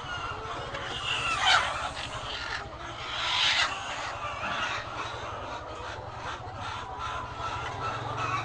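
Many hens clucking and squawking, with a loud falling squawk about a second and a half in and another loud call around three and a half seconds; short calls continue after that over a steady low hum.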